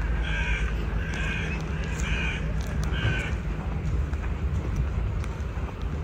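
A crow cawing four times, about a second apart, over a steady low background rumble.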